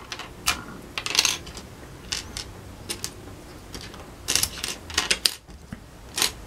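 Small hard plastic Playmobil parts clicking and clattering as they are handled and set down on a tabletop. The clicks come irregularly, a dozen or so, the loudest about a second in and around four and a half seconds in.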